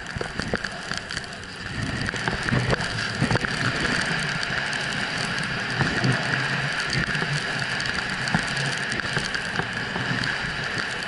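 Snowboard sliding and carving over snow: a steady rushing scrape with scattered small clicks and knocks, louder from about two seconds in.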